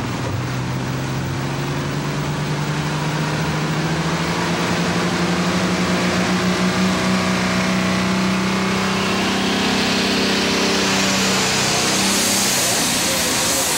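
IH 3688 diesel super stock pulling tractor, 436 cubic inches and turbocharged, revving as it builds boost: the engine note climbs slowly and grows louder for about nine seconds. From about ten seconds in, a rising high hiss of the turbochargers takes over.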